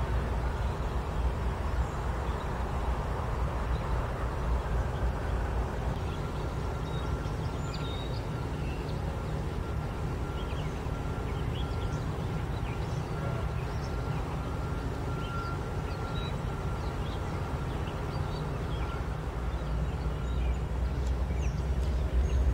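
Norfolk Southern diesel locomotives running, giving a steady low rumble. A thin, steady high tone joins about six seconds in and fades near the end, with faint scattered chirps above.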